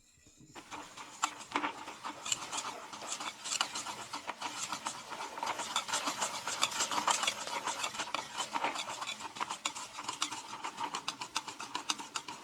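Milk being stirred fast in a small stainless steel bowl set in salted ice to freeze it into ice cream: a utensil scraping rapidly and without pause against the metal, starting about half a second in.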